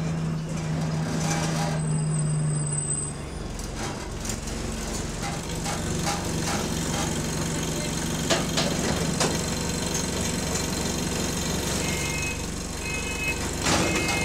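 Bus engine running while stopped, heard from inside the passenger saloon: a steady low drone whose strongest tone drops away about three seconds in. A few sharp clicks come around the middle, and a run of short high beeps near the end.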